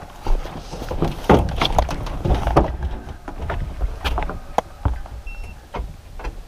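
Low wind rumble on the microphone with an irregular run of clicks, knocks and thumps as the camera is handled around a pickup truck and its dog box.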